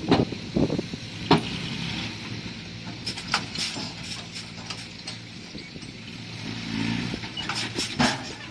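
Crawler bulldozer's diesel engine running steadily under load, with the steel tracks clanking and sharp knocks heard several times, the loudest about a second in and near the end.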